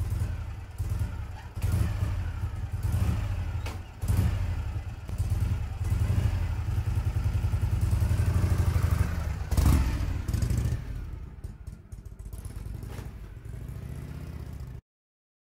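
Motorcycle engine running and revving in a pulsing low rumble, with a few sharp knocks along the way; it fades and then cuts off suddenly near the end.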